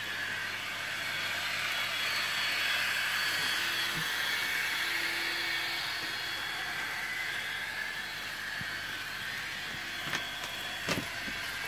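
Kato N-scale VT 18.16 model multiple unit running on the track: a steady high motor whir with wheel hiss on the rails, swelling slightly and then easing, with a few light clicks near the end.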